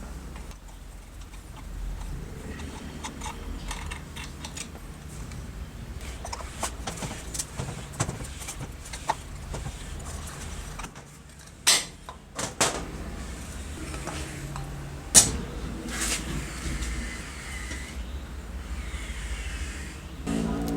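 Scattered small clicks and taps of parts and tools being handled, over a low hum, with a few sharp knocks about two thirds of the way through. A small motor starts running steadily just before the end.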